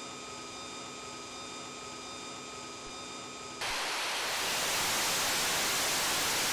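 Pratt & Whitney F119 afterburning turbofan running on a test stand, pushed to maximum power. It begins as a steady hiss with faint whining tones, then about three and a half seconds in turns abruptly to a much louder, even rushing noise of the engine in full afterburner.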